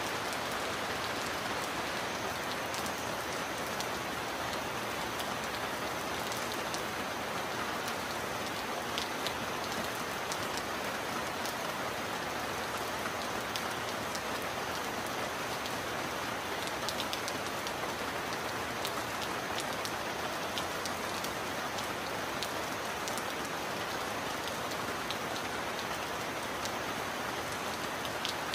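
Steady heavy rain falling, an even dense hiss with scattered sharp ticks of individual drops and no thunder.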